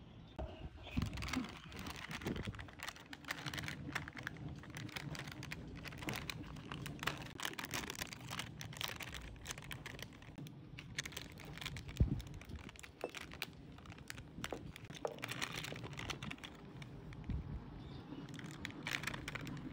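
Foil-lined plastic snack bag crinkling and crackling as it is handled and torn open by hand, with irregular clicks throughout and one sharper knock partway through. Near the end, chocolate-coated wafer balls are poured from the bag into a ceramic bowl.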